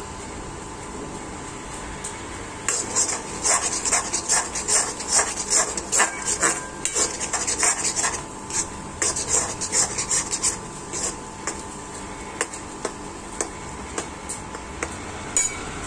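A metal spoon scraping and clinking against a metal kadai as scrambled eggs (anda bhurji) are stirred and broken up. The strokes start about three seconds in, come fast and dense through the middle, then thin out to scattered clinks near the end.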